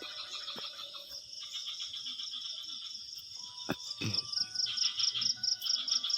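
Night chorus of crickets, high pulsed chirping repeating several times a second. A sharp knock and a dull thud come about four seconds in.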